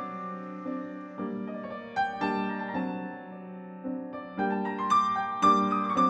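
Gentle piano music, unhurried notes and chords struck every half second to a second and ringing on as they fade.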